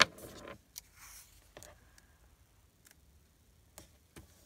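Washi tape and paper being handled at a craft table. A sharp click comes right at the start, followed by a brief rustle. A softer rustle of the tape being pressed down onto an envelope flap comes about a second in, and a few light taps follow.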